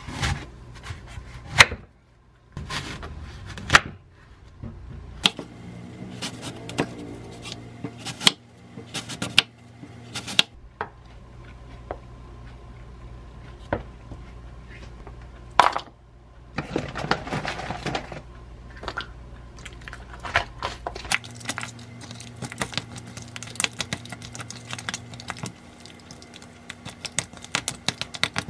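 A knife cutting an apple on a wooden cutting board, with sharp knocks of the blade and utensils on the board. A short scraping rush comes about halfway through. After it, a utensil stirs frozen blueberries into thick yogurt in a bowl, a quick run of small clicks.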